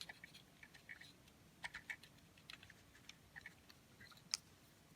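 Faint, light clicks and taps of small plastic drone parts being handled while the back of a Phantom 3 camera gimbal is taken apart, with one sharper click about four seconds in.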